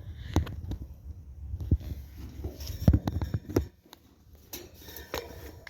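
Irregular light knocks and clicks over a low rumble, falling almost quiet for a moment about four seconds in; no air-conditioner compressor or fan is heard running.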